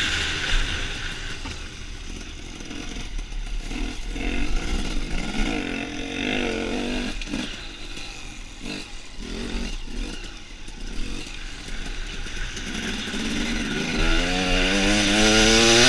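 Enduro dirt bike's engine heard close up from the rider's helmet camera, its revs falling back and wavering over rough ground with knocks and clatter from the bike; near the end the engine revs up in a steady rising whine as the rider accelerates.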